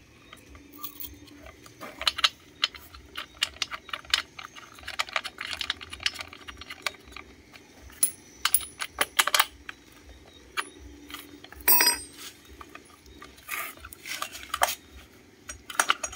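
Irregular sharp metallic clicks and clinks of a small two-stroke brush-cutter engine and loose hand tools being handled and set down on a hard floor, readying the engine for a test start.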